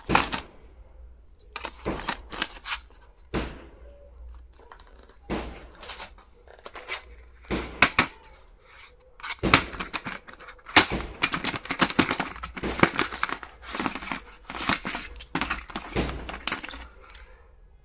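Stationery items and their packaging being handled: an irregular series of clicks, taps and crinkling, busiest in the second half.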